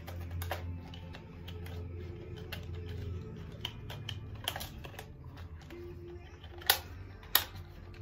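Small plastic clicks and taps of hands working wires into a DIN-rail contactor panel, with two sharp snaps about a second apart near the end. Soft background music plays underneath.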